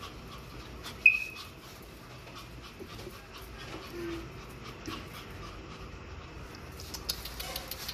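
Small dog panting, with a brief high whimper about a second in, and faint clicks of its claws on a tile floor as it walks.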